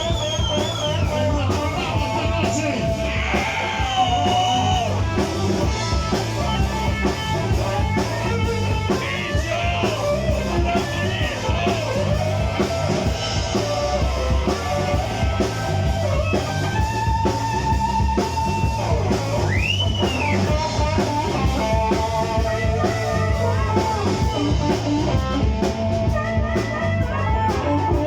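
Blues band playing: a lead electric guitar bending and sustaining notes over bass and drums.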